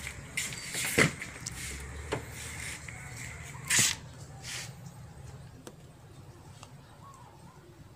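A car's rear door being opened, with a sharp latch knock about a second in and a lighter knock about two seconds in. Short rustling, rushing bursts of handling noise come near four seconds, then it goes quieter.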